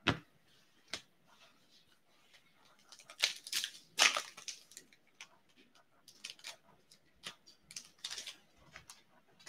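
An Upper Deck hockey card foil pack being torn open, with the loudest rustling tear about three seconds in, then the wrapper crinkling in short bursts as the cards are pulled out. Two sharp taps come before it, right at the start and a second later.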